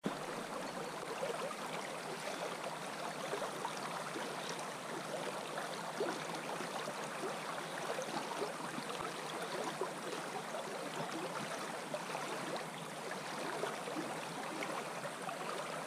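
Fast, shallow river water rushing over a riffle: a steady wash of flowing water close by.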